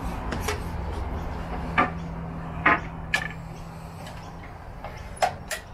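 A handful of sharp clicks and knocks as power tools and their plastic case are handled, over a low background hum that fades after about four seconds.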